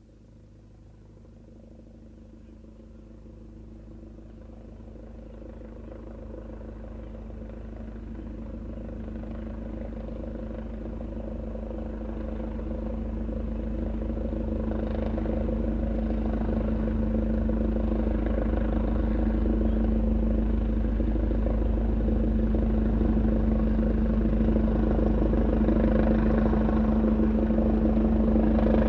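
Helicopter approaching to land, its rotor beat and engine tone growing steadily louder throughout.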